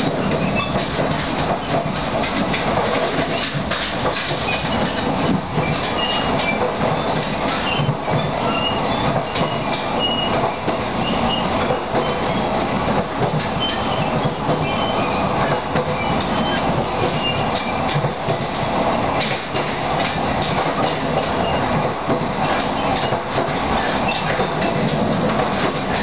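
Running noise inside a 14-series passenger coach at speed: a steady rumble and rattle of the wheels on the rails.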